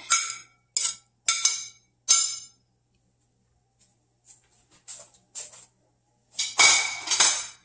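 A spatula scraping spaghetti squash off a plate into a nonstick skillet: a run of short scrapes and clinks, with a longer, louder scrape near the end.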